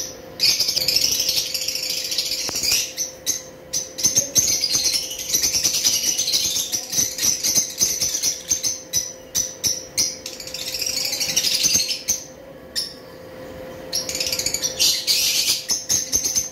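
Small parrots chattering and twittering in fast high-pitched runs, with short lulls about three seconds in and again around twelve seconds in.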